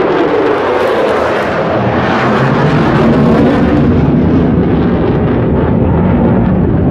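Loud, steady roar of fighter jets flying around overhead, taken for F-22s; its high hiss eases off about halfway through while the low rumble holds.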